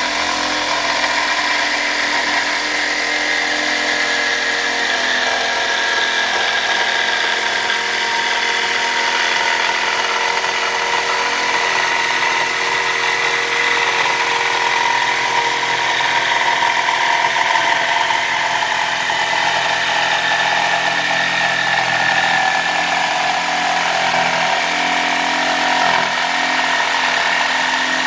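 Power tool running continuously while cutting a push bar, a steady mechanical whine with several held tones.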